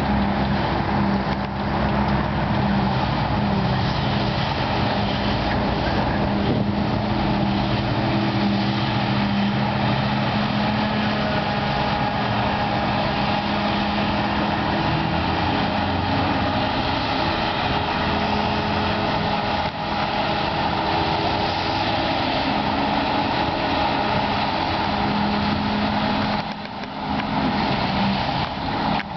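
Claas Jaguar forage harvester and a tractor engine running steadily under load while the harvester chops grass and blows it into a tri-axle silage trailer.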